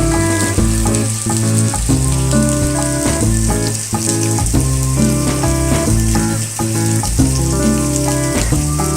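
Instrumental music with a steady bass line and notes changing every fraction of a second, over a constant hiss of falling rain.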